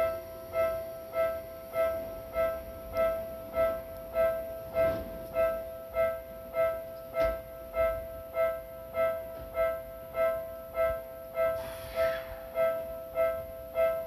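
Japanese electronic level-crossing warning bell ringing, the same short chiming ding repeating evenly a little under twice a second. It signals that the crossing is closed for an approaching train.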